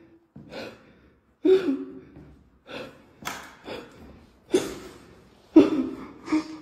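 A person breathing hard in short, sharp gasps, some of them voiced, about one or two a second.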